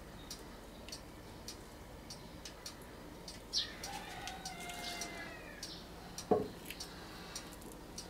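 A clock ticking steadily, a little under two ticks a second. A bird calls briefly in the middle, and a single sharp knock comes about six seconds in.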